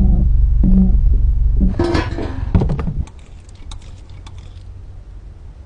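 Mini Cooper S turbocharged 1.6-litre four-cylinder idling steadily, then switched off about two seconds in, with a brief clatter as it stops and the rumble dying away; afterwards only a few faint ticks.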